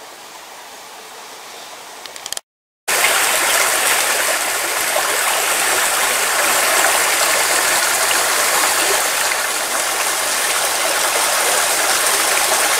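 Small mountain stream rushing and splashing over a rocky cascade, a steady loud noise of running water. It comes in abruptly after a brief silent gap about two and a half seconds in; before the gap the water is a fainter hiss.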